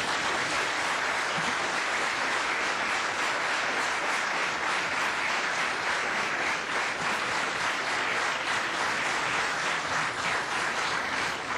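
Audience applauding: a long, steady round of clapping that dies away at the end.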